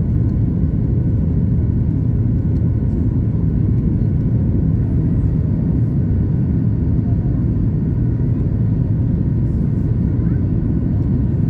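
Cabin noise of a Boeing 737 MAX 8 climbing after take-off: a loud, steady, deep rumble of its CFM LEAP-1B engines and the airflow, heard from inside the cabin, with faint steady tones above it.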